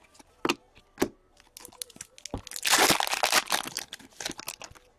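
A foil trading-card pack crinkling as it is torn open and pulled apart, loudest a little past halfway. Before that come two light taps from cards being handled.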